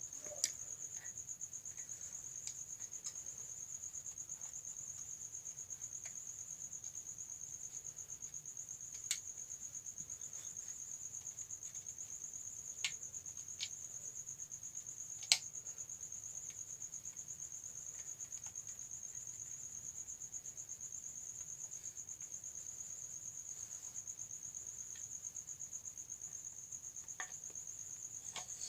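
A cricket trilling steadily and high-pitched, with a few sharp clicks from the iron's plastic back cover being handled and pressed into place, the loudest about halfway through.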